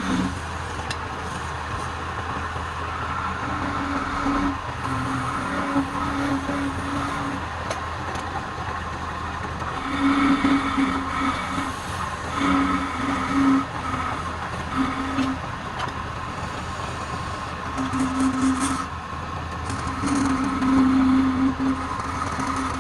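Wood lathe running with a steady hum, while a tool cuts or rubs the spinning wood in bursts of one to two seconds.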